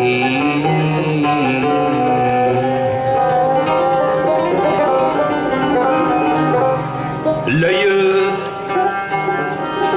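Live ensemble of plucked strings, oud and banjos, playing an instrumental passage of Algerian song.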